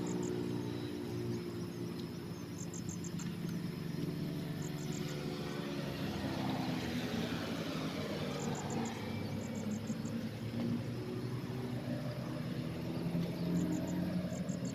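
An engine running steadily, its pitch rising and falling around the middle, with short trains of high-pitched insect chirps now and then.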